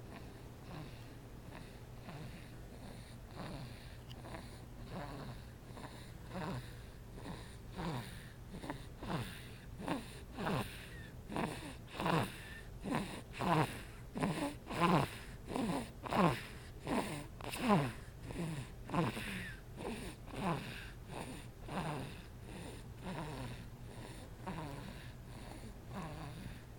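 Sleeping newborn baby snoring: short, snuffly breaths about every three quarters of a second, each falling in pitch. They grow louder toward the middle and fade again. This is the baby's normal breathing sound, not a cold or a blocked nose.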